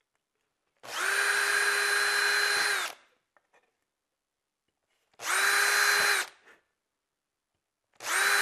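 Makita 18 V cordless drill spinning a 1.5 mm bit through the thin aluminium of a drink-can bottom, drilling a ring of small burner holes. The drill runs three times: about two seconds, then twice for about a second each. Each run is a steady whine that drops slightly in pitch as the trigger is released.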